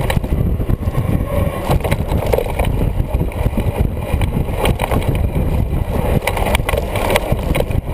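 Wind buffeting the microphone of a camera riding on a fat-tire mountain bike at speed, over a low rumble of the fat tyres on the dirt trail and irregular knocks and rattles from the bike over bumps.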